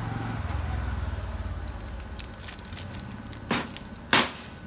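A low vehicle-like rumble fades over the first couple of seconds, then two sharp metal clicks come about a second apart, the second louder, as the iron hook and ring of a hand steelyard scale are handled.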